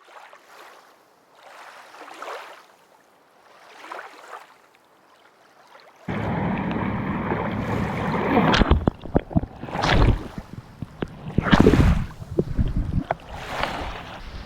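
Water lapping and splashing with wind, faint at first; about six seconds in a much louder rush of wind on the microphone and splashing water cuts in, surging several times.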